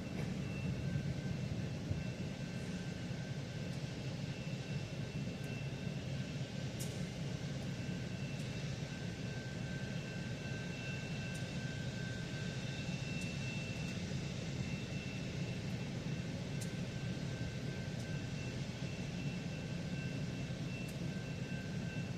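Steady low engine drone, with two faint, thin, steady high whines over it.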